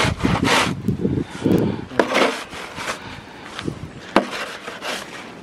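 Plastic snow shovel scraping along a brick walkway and knocking on the pavers as it pushes snow, in several irregular strokes with sharp knocks a second or so apart.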